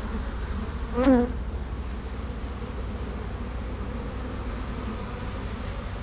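Asian honeybees (Apis cerana) buzzing steadily around an opened hive as frames of queen cells are lifted out, with one brief, louder buzz about a second in.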